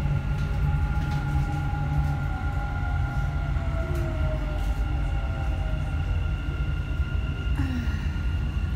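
Dubai Metro train running, heard from inside the carriage: a steady low rumble with a high motor whine, one tone of which glides slowly down in pitch a second or two in.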